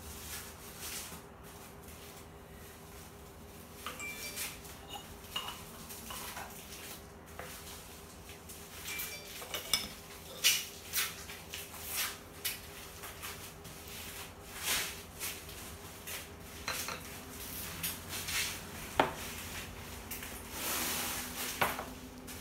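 Yixing clay teapots, lids and small porcelain tea cups clinking and knocking against one another and the tea tray as gongfu tea is brewed, many separate sharp clinks, with tea poured from the pot into the cups.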